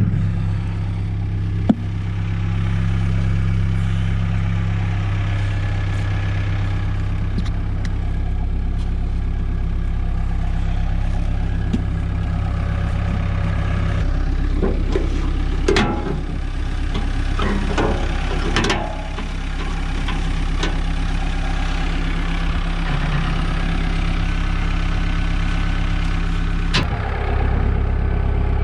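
An engine idling steadily, with a sharp knock early on and a few metallic clanks in the middle.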